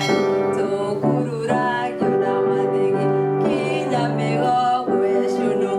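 Music: held sung notes over a keyboard accompaniment, the notes changing about once a second.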